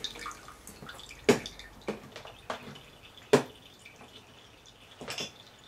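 Stale gasoline dripping from the leaking carburetor of a 6 hp Mitsubishi engine into a glass cup: a handful of separate drops, two of them much louder than the rest.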